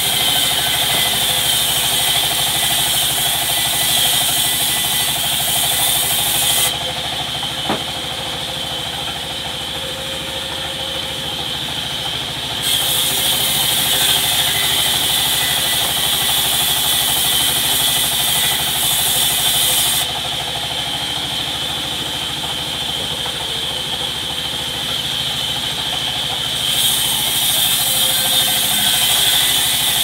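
Large vertical band saw running with a steady high whine, joined three times by a loud hiss lasting several seconds each as the blade cuts lengthwise through teak planks. Between cuts it runs quieter, with a single sharp click about eight seconds in.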